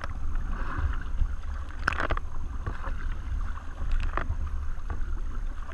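Kayak paddle blades dipping and splashing, a few strokes with the strongest about two seconds in and again around four seconds, over a steady low rumble of wind on the microphone.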